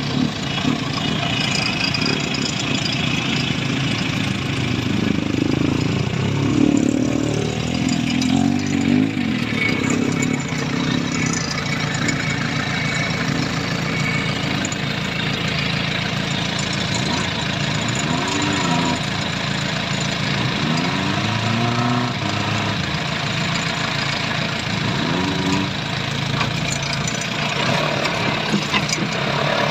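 Off-road jeep engines running under load on a steep dirt climb, heard from inside the cab of the following vehicle. The engine note is steady at first, then the revs rise and fall several times in the second half.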